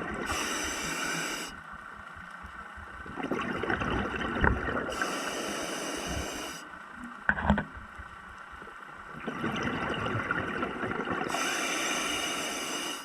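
Scuba diver breathing through a regulator underwater: a hiss on each of three inhalations, with a gush of exhaust bubbles between them. Sharp clicks come about a third and halfway through.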